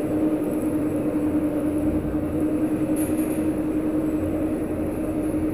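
Schindler MRL 3300 machine-room-less traction lift car travelling in its shaft, heard from the car top: a steady rumble with a constant hum.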